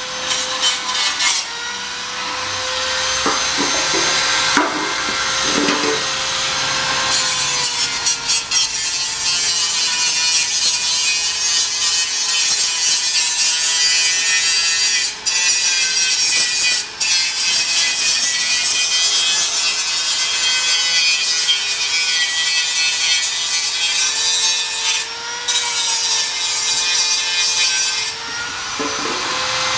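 Electric angle grinder running with a steady whine, its disc grinding weld beads off a steel cover: a harsh grinding noise that comes and goes at first, then runs almost without a break from several seconds in, stopping briefly a couple of times. It is deburring after welding.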